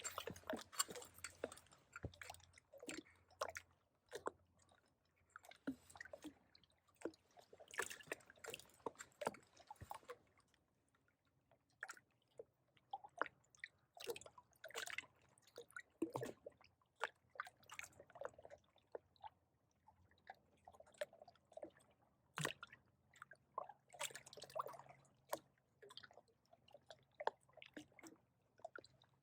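Faint, irregular small water sounds: light splashes and drips with scattered soft clicks.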